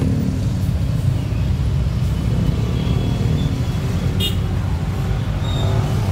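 Road traffic heard from a car moving slowly through heavy traffic: a steady low rumble of engines and tyres from the car and the buses and trucks alongside, with a brief click about four seconds in.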